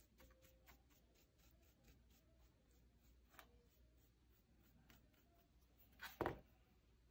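Faint scratchy strokes of a soft brush dabbing and rubbing gold leaf onto a scorpion specimen. About six seconds in comes a louder short knock as the brush is set down on the polystyrene board.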